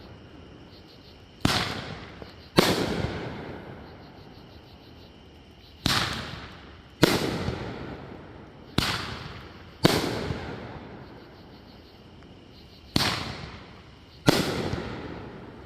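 Pyro Demon 'Death Punch' 500 g fireworks cake firing: eight sharp booms, coming in pairs about a second apart, each trailing off in a rumbling echo.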